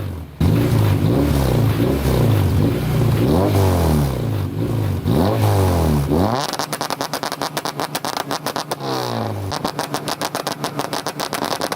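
Honda K24 four-cylinder engine in a swapped Acura Integra revving hard in repeated rising sweeps, dropping back between them. From about six seconds in, the engine note gives way to a fast, choppy pulsing that goes on for several seconds, broken briefly by the engine note.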